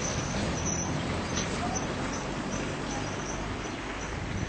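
Birds chirping in short, high chirps over a steady background hiss.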